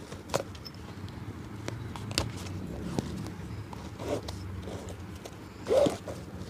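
Cobbler's handwork on a shoe: a few light taps and clicks, then short scraping strokes, the loudest near the end, over a steady low hum.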